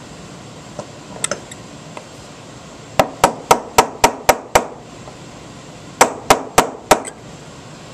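Small hammer tapping a pin punch, driving the firing pin retaining pin back into a Browning Citori shotgun's action with light metal-on-metal taps. There is a quick run of about seven taps, then after a pause about four more, roughly four a second.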